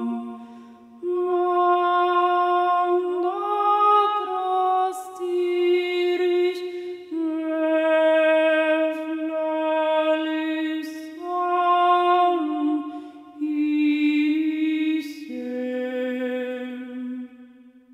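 A single voice singing or humming a slow melody of long held notes, with brief pauses between phrases.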